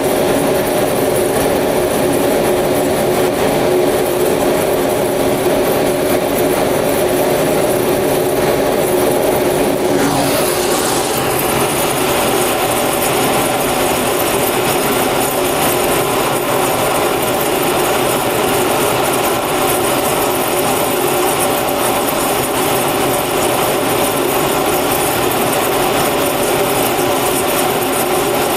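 Cremation furnace running: the burner and blower make a loud, steady noise with a low hum in it, as the fire burns hot inside the chamber. The sound shifts slightly about ten seconds in.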